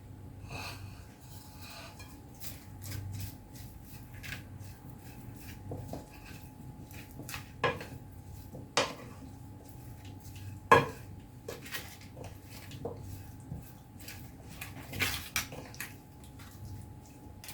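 A spoon stirring green olives with spices in a bowl: irregular clinks and scrapes against the bowl, with a few sharper knocks in the middle.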